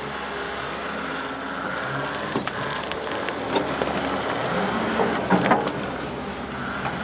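Construction machinery engine running steadily, with a few sharp metallic knocks and clanks; the loudest come in a quick pair about five seconds in.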